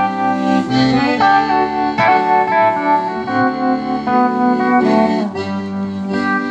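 Live band playing an instrumental passage led by a button accordion in long held chords, over electric guitar and drums.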